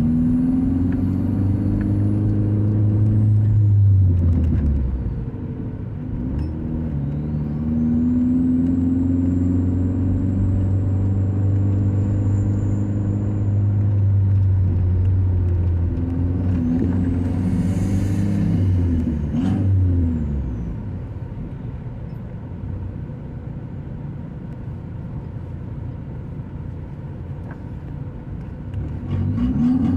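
A motor vehicle's engine running, its pitch rising and falling as the revs change. About twenty seconds in it drops to a quieter, lower sound, then it rises again near the end, with a faint high whine gliding above it at times.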